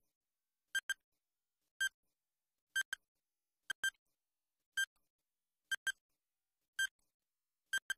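Countdown timer sound effect: short, high electronic beeps about once a second, a few of them doubled, with silence between.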